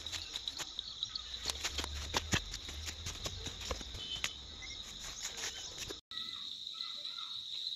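A steady, high insect drone, crickets or cicadas, with irregular crackling and rustling of footsteps pushing through leafy undergrowth for about the first six seconds. The sound breaks off for an instant about six seconds in, after which only the insect drone remains.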